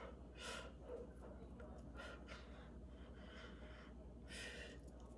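Faint breaths and puffs of air from a person as she signs: about five short hisses, with a steady low hum beneath.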